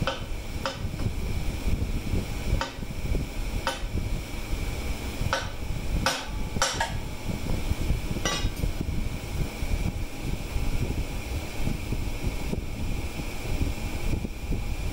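Sharp metal-on-metal clinks and knocks from hand tools working on the mower's lift-arm bracket, about eight of them in the first nine seconds and none after, over steady background noise.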